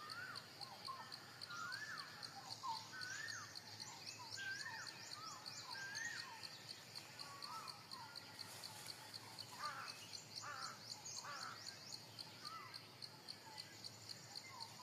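Birds calling with many short whistled notes that rise and fall, over a steady, fast, high-pitched insect chirring. About ten seconds in, three quick harsher calls stand out.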